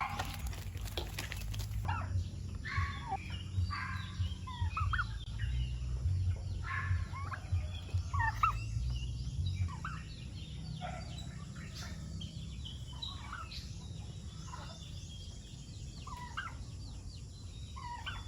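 Poultry calling: many short clucks and chirps scattered throughout, over a steady low rumble.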